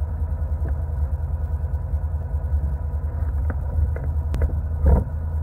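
ATV engine running steadily at low revs with a low rumble, and a few light clicks near the end.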